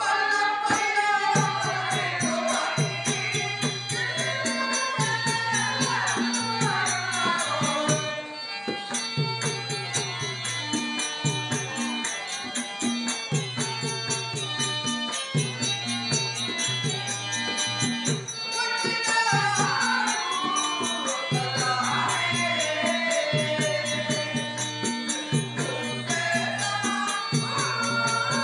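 A single voice singing a folk-drama song in long, bending melodic phrases, over a repeating low instrumental accompaniment and a steady rhythmic beat.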